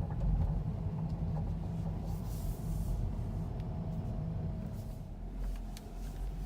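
Volkswagen Alltrack suspension creaking, a few short faint creaks and clicks over a steady low rumble from the moving car. This is an abnormal noise on a nearly new car.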